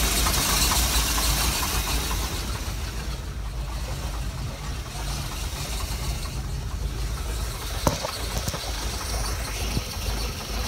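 GM 4.3 L Vortec V6 inboard engine of a 1995 Harris Corso 180 boat idling with a steady low rumble, louder for the first two seconds and then quieter. It is running smoothly. A light knock comes about eight seconds in.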